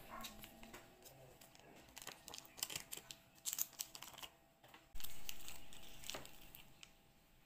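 Crinkling of a plastic-wrapped chocolate bar and light clicks of plastic lunch boxes as they are handled. A single sharp knock comes about five seconds in and fades slowly.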